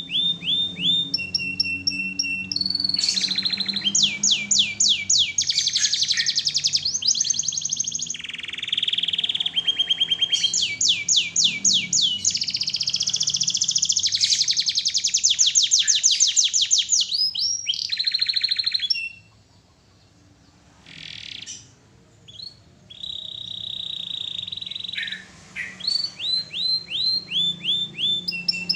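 Domestic canary singing in full, vigorous song: long phrases of fast rolling trills and held whistled notes. It breaks off for a couple of seconds about two-thirds of the way through, then starts again.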